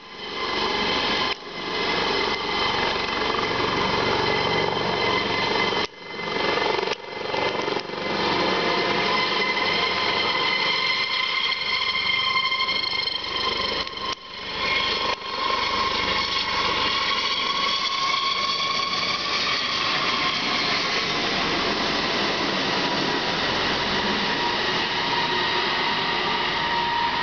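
Rescue helicopter's turbine and rotor running as it lifts off a rooftop helipad and flies away: a loud, steady whine with several high tones over a rushing noise. The sound drops out briefly a few times in the first half, and the tones sink slightly in pitch later on.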